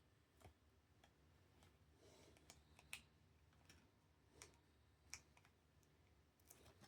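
Faint, scattered clicks and light ticks of trading cards and plastic card sleeves and holders being handled, the sharpest about three seconds in and again just after five seconds.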